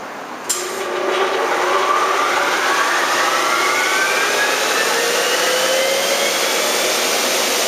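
Sonny's 15-horsepower central car-wash vacuum unit starting up: a click about half a second in, then its motor and blower spin up, with a whine that rises steadily for several seconds over a loud rush of air. It sounds noisy.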